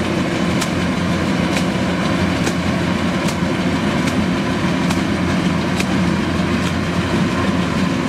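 Kubota rice combine harvester running steadily as it cuts rice, a low engine and machinery drone with a sharp tick repeating a little more than once a second.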